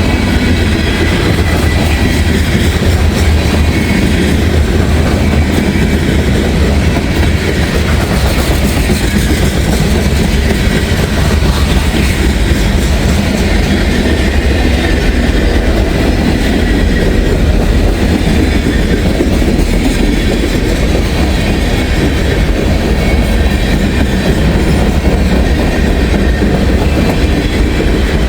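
Freight train rolling past at close range, a transfer train, its cars' wheels clattering over the rail joints in a steady, loud run.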